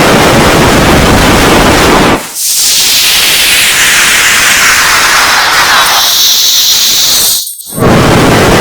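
Loud, harsh, heavily distorted hiss-like noise from an audio-effects edit, in three stretches with short dropouts about two and seven and a half seconds in.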